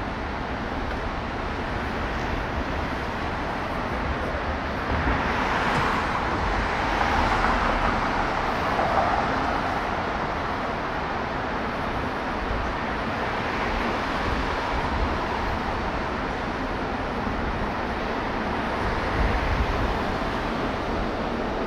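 City street traffic noise, steady throughout, swelling louder for a few seconds about five seconds in as a vehicle passes.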